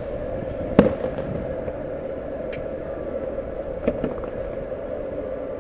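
Fireworks banging: one sharp crack about a second in, a faint pop midway, and two quicker pops near the four-second mark, over a steady background hum.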